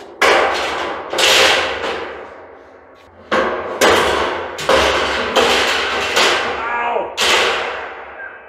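Steel pallet rack parts being struck together: about eight loud metal clangs at uneven intervals, each ringing on for a moment.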